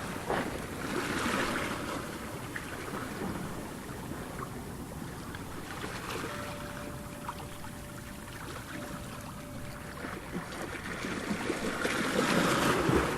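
Ocean surf washing ashore, with a wave swelling about a second in and another building near the end, and wind on the microphone.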